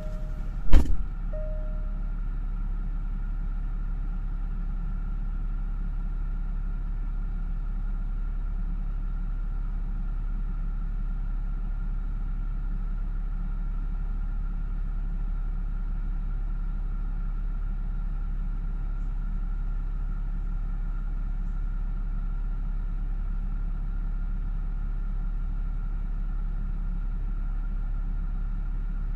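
Parked car's engine idling, a steady low rumble heard from inside the cabin. About a second in a car door slams shut, and a short repeating warning chime stops just after it.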